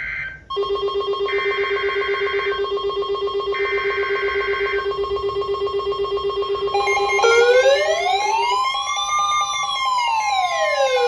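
Emergency alert tones: a steady, rapidly pulsing low tone with a higher beep sounding twice. About seven seconds in, a wailing siren joins, slowly rising and falling in pitch.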